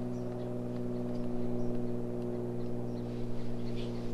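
A steady low machine hum, several pitches held level, with a few faint ticks.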